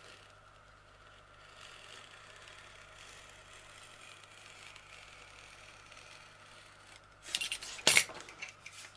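Faint steady hum, then, near the end, a short cluster of sharp clicks and knocks from objects being handled.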